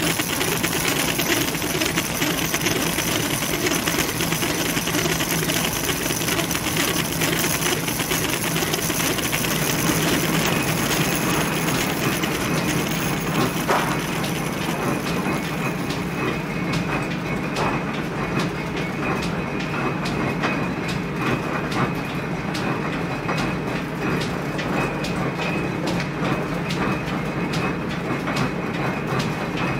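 Nineteenth-century silk winding and warping machinery running with a steady, dense mechanical clatter. About halfway through the sound thins out into a rapid run of light clicks.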